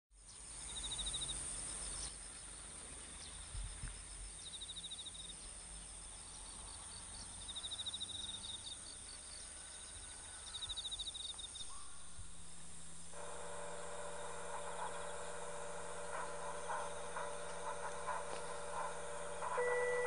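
Faint outdoor morning ambience: short high chirping trills every few seconds over a steady high hiss. About two-thirds of the way through, a low hum and a hiss come on from the outdoor public-address horn loudspeakers as the line opens. The first chime notes sound just at the end.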